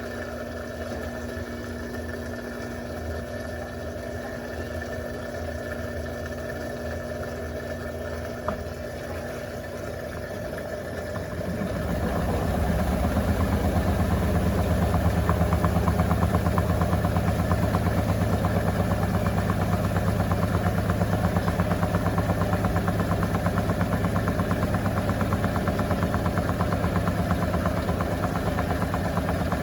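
Electrolux Turbo Compacta LTC07 top-loading washing machine on its turbo spin cycle: the motor hums steadily, a single click sounds about eight seconds in, and about twelve seconds in the sound grows louder into a fast, pulsing low hum as the tub spins up to speed.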